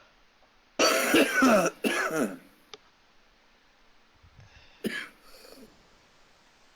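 A person coughing and clearing their throat after a hit of smoke: a long hacking burst about a second in, a second one right after, and one short sharp cough near the five-second mark.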